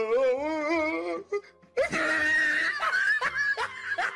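Comedy soundtrack effects: a warbling, wavering note with a heavy vibrato for about a second, then a loud, shrill, noisy burst, and short snickering laughs near the end.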